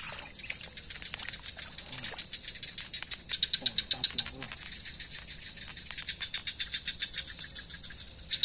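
Night insect chorus: trains of rapid, high-pitched pulsing calls that come and go in bursts, over a steady high whine. There is a short knock right at the start.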